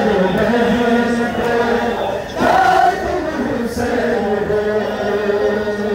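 Group of men chanting a noha, a Shia lament for Muharram, in unison on long held notes. The chant swells louder and higher about halfway through.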